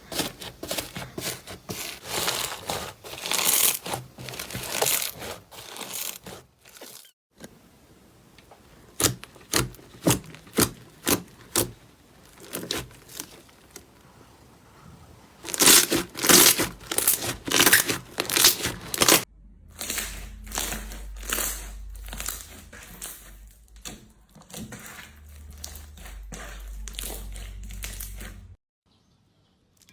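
Slime being squeezed and poked by hand, making runs of sharp crackles and pops in several separate bursts, stopping suddenly near the end.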